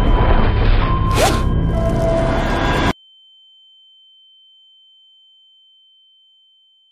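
Loud cinematic title-card sound design with a deep rumble and a whoosh; it cuts off suddenly about three seconds in, leaving a single thin, high, steady ringing tone that slowly fades away.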